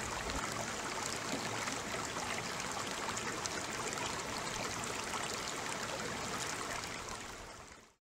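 Mountain stream water rushing and splashing over granite rocks and small cascades, a steady rush full of fine crackles, fading out in the last second.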